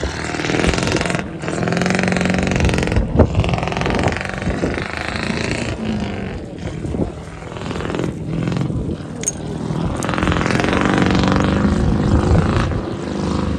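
Off-road race truck's engine running under load, its pitch rising and falling as it is revved through a shallow river crossing and up the bank.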